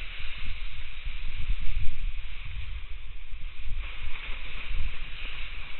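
Wind buffeting the microphone with a low, uneven rumble, over a steady hiss and rustle of tall dry grass as the wearer walks through it; the hiss grows a little louder about four seconds in.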